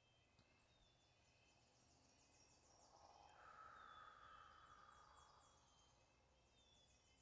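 Near silence: faint, high, rapidly repeated chirping in the background, with a soft swell of hiss that rises about three seconds in and fades away.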